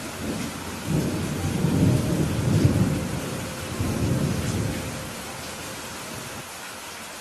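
Steady rain falling, with a low rolling rumble of thunder that swells about a second in and dies away after about five seconds.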